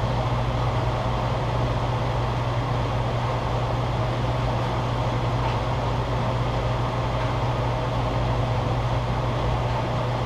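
Propane cooker burner running steadily under a steam boiler, a constant noise with a low hum underneath.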